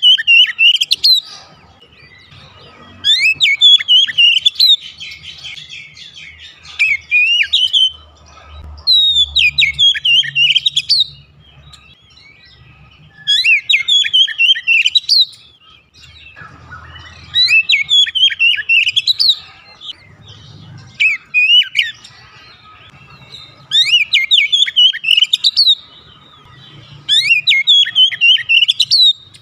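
Oriental magpie-robin (kacer) singing: loud phrases of rapid sweeping whistles and chattering notes, each a second or two long, repeated about every three seconds.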